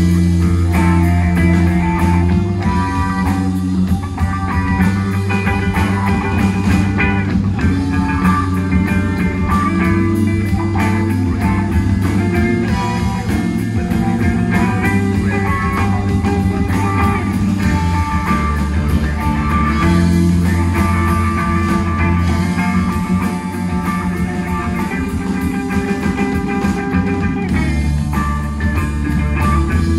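A rock band playing: guitar over bass and drums, steady and unbroken.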